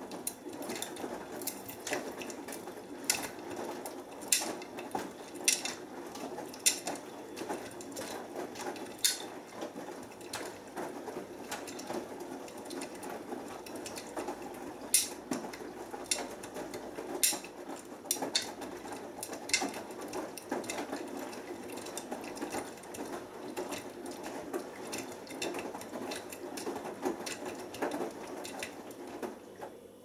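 Beko WMB81445L washing machine drum tumbling a wet load in the wash stage before heating: steady churning of laundry in the turning drum, with frequent sharp clicks. The tumble starts at the beginning and stops as the drum pauses at the end.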